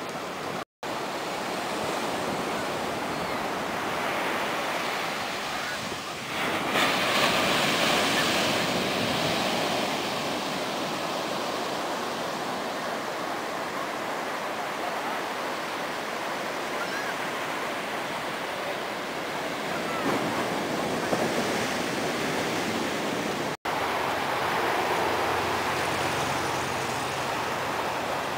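Ocean surf breaking on a sandy beach: a steady wash of waves, with a louder surge of breaking surf about seven seconds in. The sound cuts out for an instant twice.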